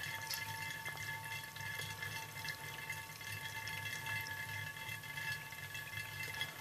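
Wine running through a Buon Vino Super Automatic bottle filler into a glass wine bottle as it fills, a soft steady trickle with faint drips, over a constant background hum.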